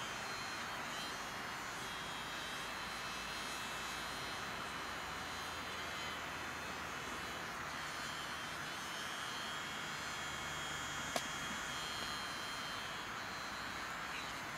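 Steady rushing outdoor background noise with faint thin high tones drifting through it, and one sharp click about eleven seconds in.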